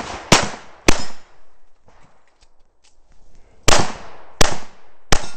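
Stainless 1911-style pistol, a Dan Wesson PM7 in .45 ACP, firing five shots with a short echo after each: two about half a second apart near the start, then after a pause of nearly three seconds, three more about 0.7 seconds apart.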